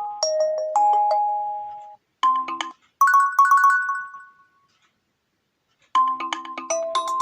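Nokia 1.3 phone ringtones playing: a melody of short ringing notes breaks off about two seconds in, then two short phrases, the second fading out. After about a second of silence a new ringtone melody starts near the six-second mark.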